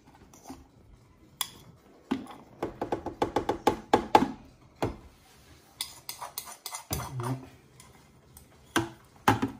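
A pot knocked and tapped against the rim of a stainless-steel stand-mixer bowl in quick clusters of sharp knocks, as flour mixed with baking powder is shaken out of it onto whipped eggs for a génoise.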